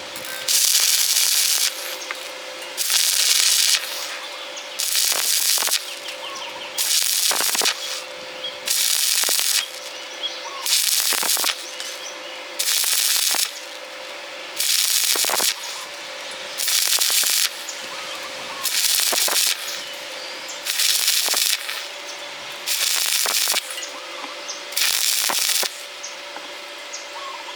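Electric welding arc burning in short regular bursts of hissing crackle, each about a second long and repeating about every two seconds, with a steady hum between them.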